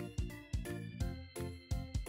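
Background music with a steady beat, about two beats a second, and pitched instrumental notes.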